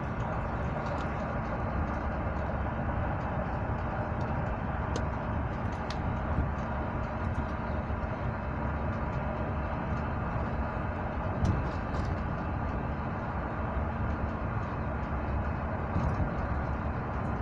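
Steady rumble and rushing noise of a moving passenger train, heard from inside the carriage, with a few faint clicks scattered through it.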